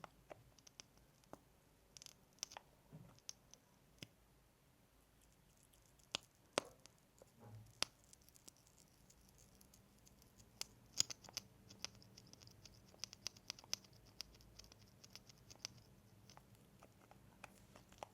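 Close-miked ASMR mouth sounds: scattered soft, sticky clicks and lip smacks, growing denser with a faint high hiss from about ten seconds in.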